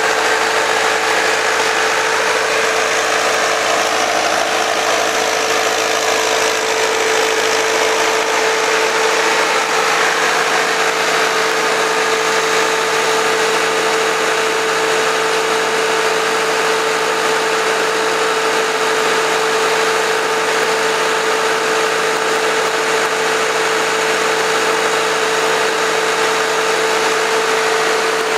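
Case IH P85 power unit's four-cylinder diesel engine running steadily under load, driving an irrigation well pump through a driveshaft and right-angle gear head. It keeps an even, unchanging hum with a strong steady tone.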